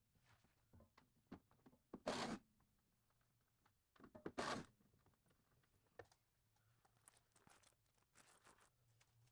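Mostly quiet, with two short noisy bursts of hand tools working on bolts, played back at four times speed: one about two seconds in and one about four and a half seconds in, with faint scattered ticks between.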